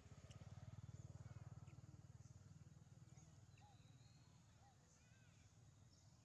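Near silence: a faint low hum, loudest in the first couple of seconds, with a few faint short chirping animal calls.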